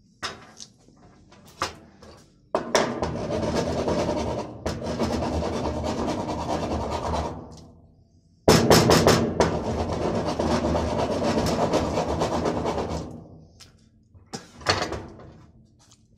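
Two stretches of loud, harsh scraping noise, each about five seconds long, starting abruptly and tailing off. A few sharp knocks come before the first and after the second.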